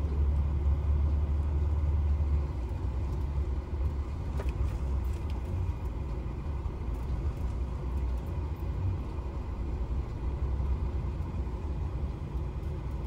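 A truck's engine and road noise heard from inside the cab while driving: a steady low rumble, a little louder for the first couple of seconds.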